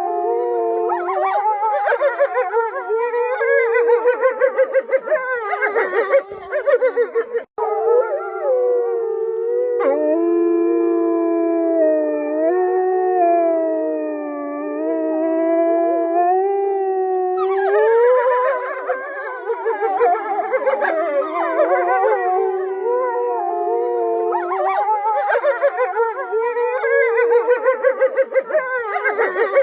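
A chorus of wolves howling, several long, gliding howls overlapping at once, thinning to fewer voices in the middle before the full chorus returns.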